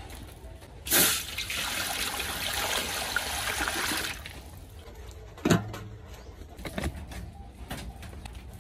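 Liquid hitting a hot wok and boiling up hard, a loud rushing bubbling that starts suddenly about a second in and lasts about three seconds. Two short sharp knocks follow a little later.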